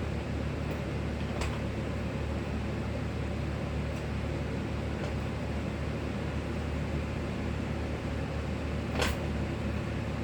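A steady low mechanical hum from a motor or fan, with a light click about a second and a half in and a short, louder scrape or rustle near the end.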